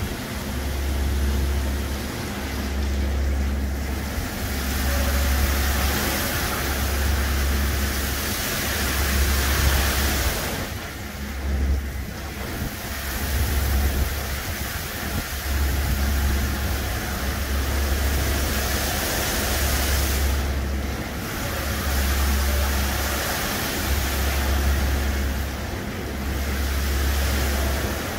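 Brush gantry truck wash running: a steady hiss of water spray and rotating brushes scrubbing a trailer, over a low machine hum that swells and drops about every two seconds. The spray hiss thins briefly twice.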